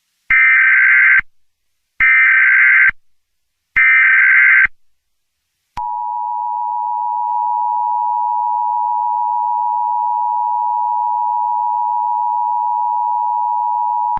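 Emergency Alert System tones: three short bursts of the SAME digital header, each a buzzy data squeal about a second long, followed by the steady two-tone EAS attention signal (853 and 960 Hz), held for about eight seconds.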